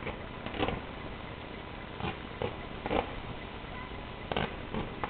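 Fireworks bursting: about seven sharp bangs at irregular intervals over a steady background rumble.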